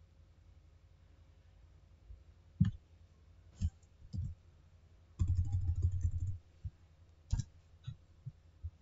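Computer keyboard and mouse clicks while editing text: a handful of separate sharp clicks, and a little past the middle a quick run of keystrokes lasting about a second.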